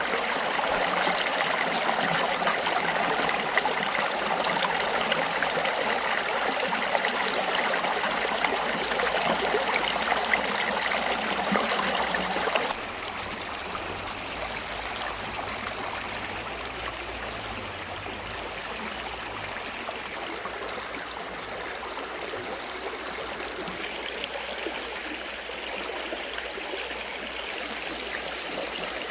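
Stream water flowing and splashing as a steady rushing wash. About halfway through it cuts suddenly to a quieter, softer flow.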